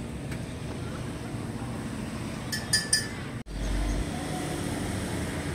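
Steady street background noise with traffic, broken by three quick light metal clinks about two and a half seconds in, then a brief abrupt dropout.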